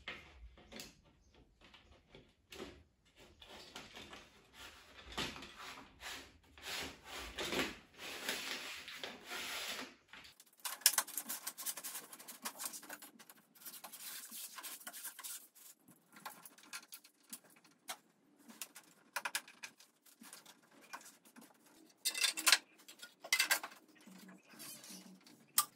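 Treadmill side rails and plastic end caps being handled and fitted onto the frame: irregular rubbing and scraping with scattered clicks, and a few sharper knocks, one about eleven seconds in and two close together near the end.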